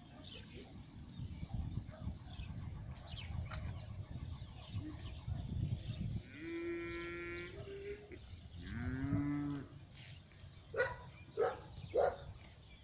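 Cattle mooing: two long calls, one after the other, in the middle, over a steady low rumble. Three short sharp sounds come near the end.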